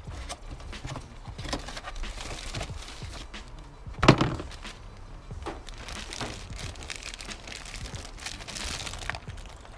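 A clear plastic packaging bag crinkling and rustling as it is handled, with one sharp knock about four seconds in.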